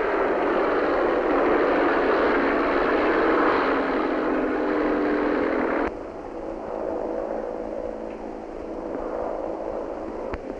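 Four-engine Blériot 5190 flying boat at full power on its takeoff run across the water: a loud, dense engine roar. About six seconds in it cuts abruptly to a quieter, steady aircraft-engine drone with a few held tones, as heard in flight.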